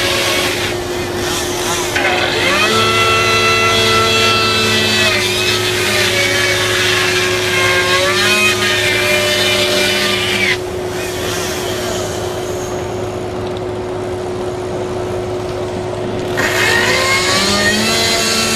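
A layered fire-scene noise track of machinery: a steady hum and tone under a loud mechanical whine that holds its pitch for a few seconds at a time and then bends up or down. About ten seconds in the whine drops out, leaving a quieter hiss and hum, and it comes back near the end.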